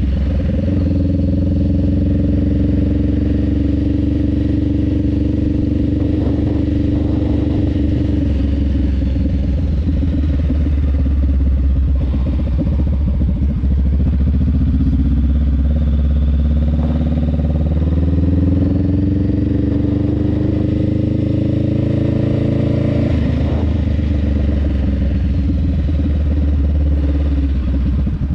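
Honda Rebel 500's parallel-twin engine, fitted with a Vance & Hines exhaust, running steadily. Its pitch climbs slowly for several seconds, then drops sharply about three-quarters of the way through.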